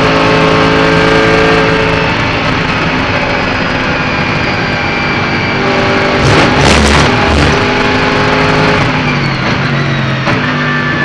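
Onboard sound of a Mercedes-AMG GT3's naturally aspirated V8 running loud at a fairly steady pitch. About six to seven seconds in, a short cluster of knocks and low thuds cuts through.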